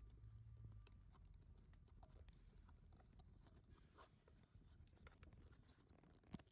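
Near silence: wood burning in a small wood-gasification camp stove, crackling faintly with scattered ticks and one sharper snap near the end.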